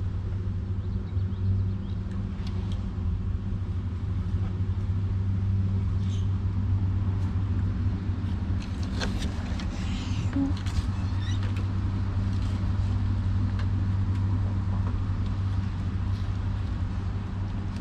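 A steady low hum runs throughout, with a few faint light clicks about halfway through.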